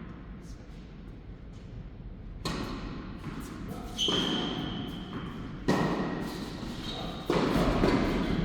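Tennis balls struck by rackets in a rally, four sharp hits about a second and a half apart, each echoing in a large indoor hall.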